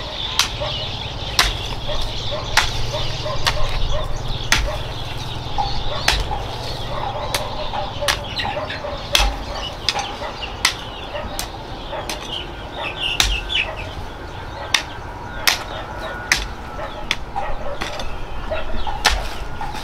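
Chickens clucking and chirping, with sharp irregular knocks about once or twice a second.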